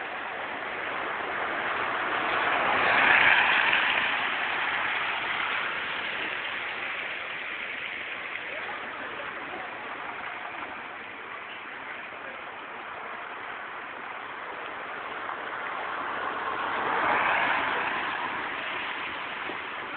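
Hail and heavy rain pelting down in a steady hiss, swelling louder twice.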